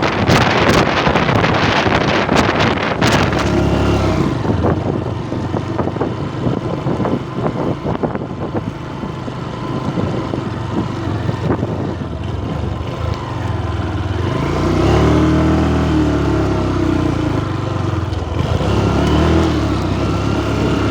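Honda Verza 150's single-cylinder motorcycle engine running under load, revving up and easing off a couple of times near the end. Wind rushes over the microphone for the first few seconds.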